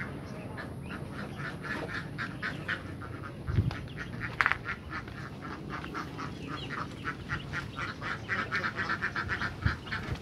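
A brood of young ducklings peeping, a rapid, steady chorus of short high calls. There are a couple of low thumps, the first about a third of the way in.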